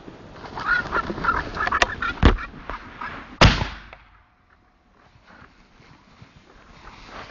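A covey of gamebirds flushing from the grass with a flurry of wings, followed by two shotgun shots about a second apart, the second ringing out.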